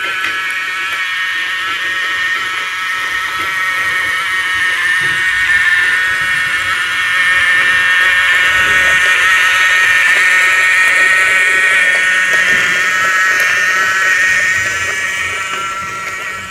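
Battery-powered toy train's small electric motor and plastic gears whirring with a steady high whine, growing louder as the train comes close and fading again near the end.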